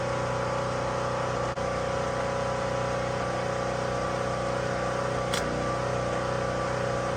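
Portable generator engine running at a steady speed, a constant hum.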